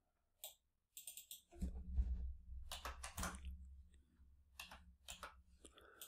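Scattered clicks of a computer mouse, single and in quick pairs, with a faint low hum coming in about a second and a half in.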